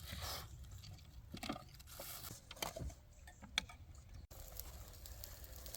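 Faint scattered clicks and short rustles of food and dishes being handled while a meal is served, over a low steady background rumble.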